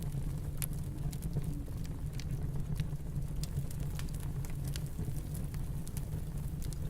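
Fireplace crackling, with scattered irregular sharp pops, over a steady low rumble of snowstorm wind.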